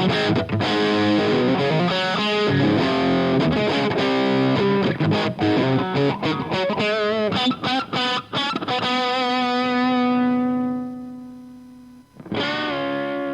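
Electric guitar played through an Omega Series Micro amplifier, its output recorded directly with a Greenback cabinet impulse and reverb added: picked lead phrases, then a held note with vibrato that fades out over about two seconds, and playing starts again near the end.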